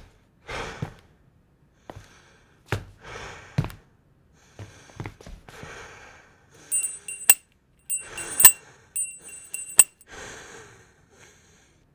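Heavy sighing breaths, then a small metal handbell rung in three short bouts of quick strikes, ringing high, followed by another breath.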